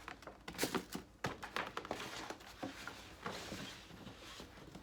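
A cardboard shoe box and its packing being handled: several knocks and taps in the first second or so, then softer rustling with a few small clicks.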